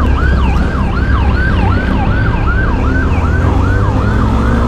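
Police siren on a fast yelp, each sweep falling in pitch, about three a second, with a vehicle engine running underneath.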